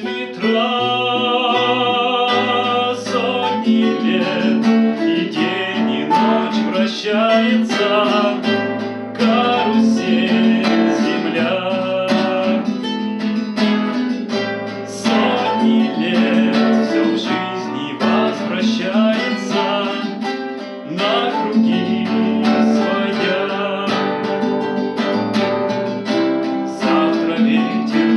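Acoustic guitar playing an instrumental passage of a song, strummed chords under a moving melody line with a steady bass beneath.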